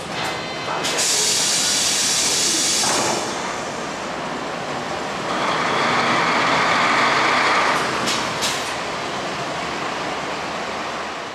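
City bus letting out a loud hiss of compressed air for about two seconds, then its engine running up as it pulls away from the stop, loudest about six to eight seconds in.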